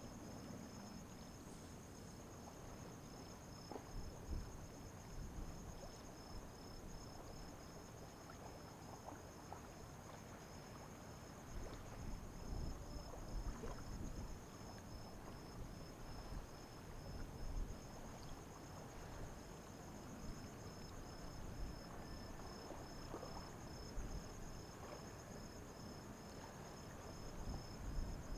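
Crickets chirping: one continuous high trill and a second insect pulsing about twice a second, over a low, uneven rumble.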